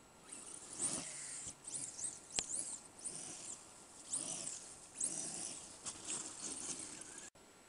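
Brushless electric motor of an RC off-road car whining in repeated short bursts, rising and falling in pitch with the throttle. The sound cuts off suddenly near the end.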